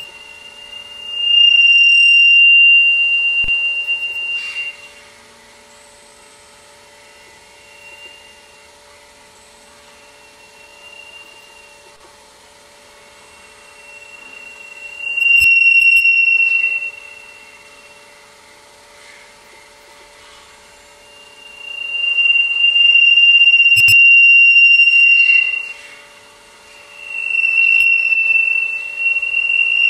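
Acoustic feedback (Larsen effect) between a microphone on a robotic arm and a loudspeaker cone: one high, steady howling tone. It swells loud four times, at the start, midway and twice near the end, and each time falls back as the arm pulls the microphone away before the loop saturates. A few sharp clicks come at some of the peaks, over a faint steady hum.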